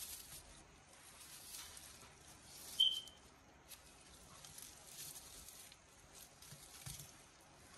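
Faint crackling and rustling as an Asian water monitor works a thawed rat in its jaws, its head rubbing against a plastic tarp, with a single short high chirp about three seconds in.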